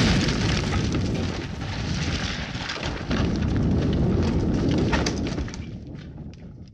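A loud, sustained rumble of demolition, with dense crackling and clattering of falling debris, starting abruptly, surging again about halfway, and fading away near the end.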